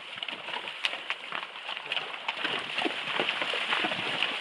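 Horses wading through a shallow, stony stream: irregular hoof knocks on the stones and splashing water over a steady rush of the stream, growing louder about two seconds in.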